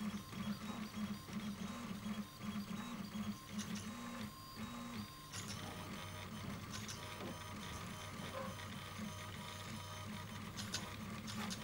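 A Guaifi 3D printer running a print: its stepper motors whine in short, changing tones as the print head moves back and forth laying down a layer, with the pattern of movement changing about five seconds in.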